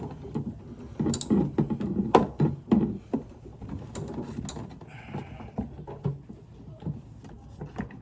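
Socket ratchet wrench clicking in short runs while loosening a truck battery connection, with scattered knocks and rattles of the tool and metal parts being handled.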